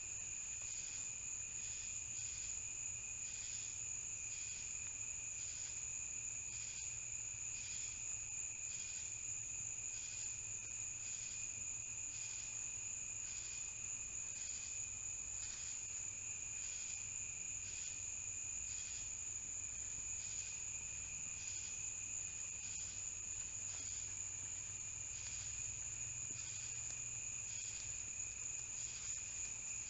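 Night chorus of crickets: a steady high trill, with a softer chirping that pulses a little over once a second.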